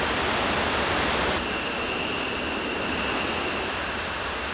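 Jet aircraft engines running: a steady rush of noise with a thin high whine, which stands out more from about a second and a half in.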